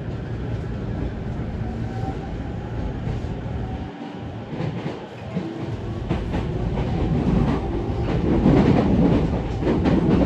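E231-500 series electric commuter train heard from inside the car, accelerating away from a station. Its running noise grows louder as it picks up speed, and from about halfway through the wheels clack repeatedly over rail joints.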